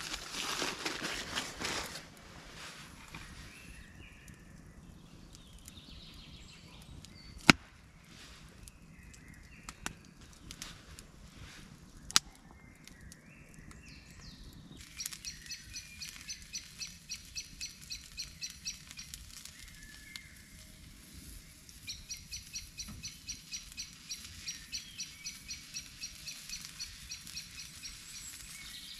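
A bird calling in a fast, steady series of short high notes through the second half, pausing once partway. Before it come a burst of rustling at the start and two sharp cracks a few seconds apart.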